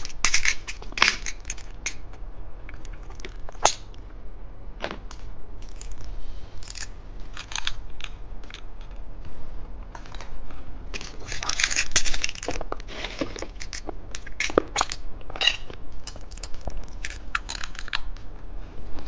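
Plastic candy packaging being handled and torn open: irregular crinkling and sharp plastic clicks, busiest about two-thirds of the way through.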